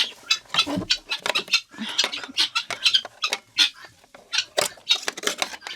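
A wire scraping and rattling along the track of an automatic chicken-coop door, clearing out built-up debris. It is a quick, irregular run of scratchy clicks.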